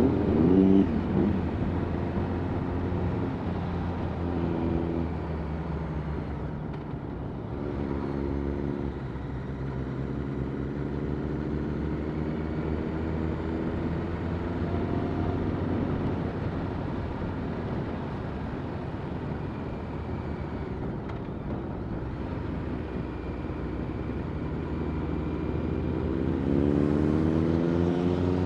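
Motorcycle engine running while riding, with a steady rushing noise underneath; the engine note shifts a few times, and near the end it rises in pitch as the bike accelerates.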